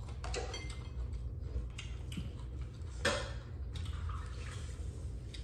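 Small clicks and clinks of eating at a table: skewers, a fork and dishes being handled, with a brief louder rustle about three seconds in, over a steady low hum.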